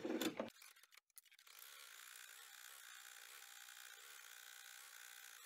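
Home embroidery machine running, sewing a placement stitch outline: a faint, steady running sound of the needle mechanism that sets in about a second and a half in, after a brief louder noise at the start.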